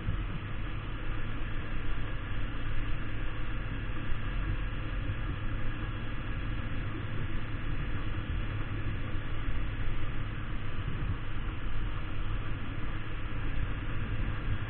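Kawasaki Ninja 250 motorcycle riding at a steady pace, its parallel-twin engine running under a steady wind noise on the bike-mounted camera's microphone.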